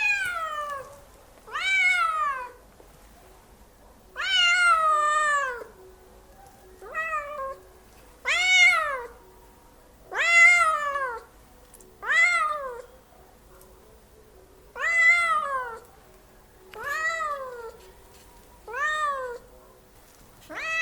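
A cat meowing loudly over and over, about ten drawn-out meows roughly two seconds apart, each rising and then falling in pitch; one about four seconds in is longer than the rest.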